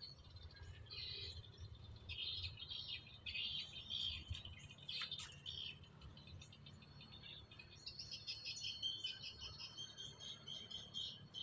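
Small birds chirping in rapid bursts of high notes, thinning briefly past the middle and thicker again toward the end. A single sharp click sounds about five seconds in.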